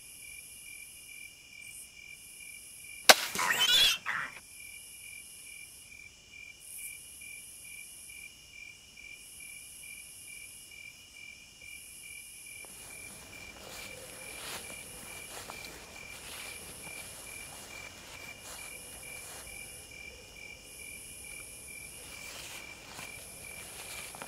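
A Man Kung MK-XB52 hunting crossbow is shot about three seconds in: one sharp crack, followed by about a second of loud noisy rustling. A faint, evenly pulsing insect chirp runs throughout, and faint rustling of movement comes in during the second half.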